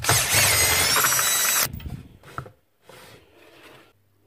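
A power tool runs loudly for about a second and a half and then cuts off, followed by a few faint knocks from parts being handled.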